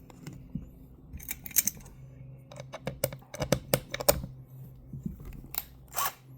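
Irregular light metallic clicks and taps of small screws being handled and started by hand into the aluminium gear-head cover of a Stihl HT 131 pole pruner, over a faint steady low hum.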